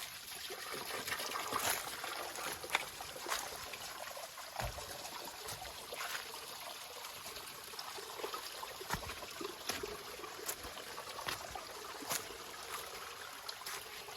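Water trickling and running steadily, like a small stream, with scattered sharp clicks at irregular moments.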